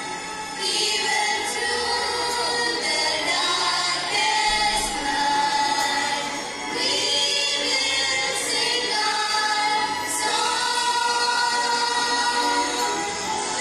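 A choir of many voices singing a song together in sung phrases, with short breaks between them near the start and about halfway through.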